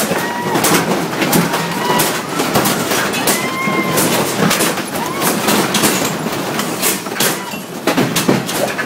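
An office shaking in a major earthquake: a dense, continuous clatter of knocks and rattles from desks, partitions, monitors and loose objects, with thin creaking squeals rising and falling over it.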